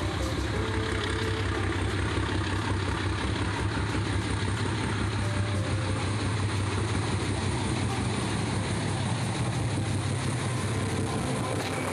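A train running, with a steady low engine hum under continuous rolling noise.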